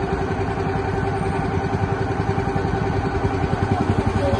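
Wooden tour boat's engine running steadily under way, a continuous even drone with a fast, regular pulse.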